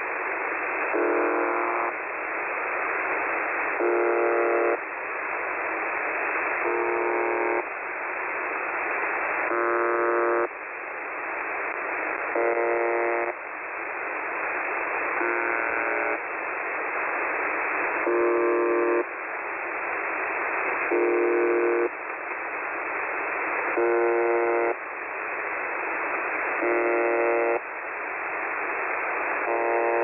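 UVB-76, "The Buzzer", the Russian shortwave station on 4625 kHz, heard through a receiver in upper sideband. A harsh buzz lasting just under a second repeats about every three seconds, about ten times, with radio static hiss between the buzzes that swells until the next one.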